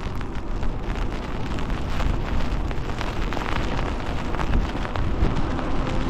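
Gusty wind buffeting the microphone on a moving e-bike, with rain spattering and the hiss of tyres on a wet road.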